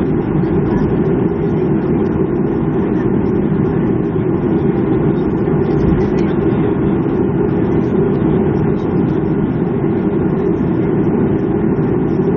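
Steady rumble of cabin noise inside a Boeing 737-300 on the ground after landing, even and unbroken.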